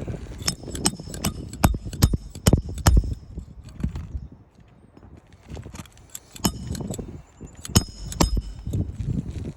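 Hammer striking roofing nails into asphalt shingles: sharp metallic knocks in two irregular runs, the hardest blows about two seconds in and again near the end.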